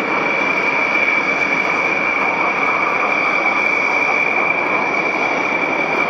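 Military jet fighter engines running on the flight line: a steady rush with a high, unchanging whine.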